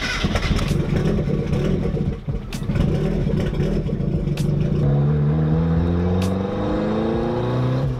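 Mazda Miata's four-cylinder engine running, heard from inside the cabin. About five seconds in, its pitch climbs as the car pulls away on a newly installed six-puck clutch that is being broken in.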